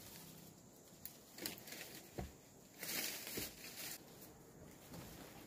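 Dry palm fronds and leaf litter rustling and crunching as a bundle is carried through the undergrowth, with a few sharp snaps and a longer rustle about three seconds in.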